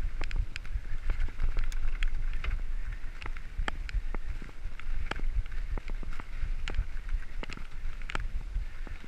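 Mountain bike rolling fast down a dirt and gravel track: wind rumble on the microphone, steady tyre hiss, and many irregular sharp clicks and rattles as the bike jolts over bumps.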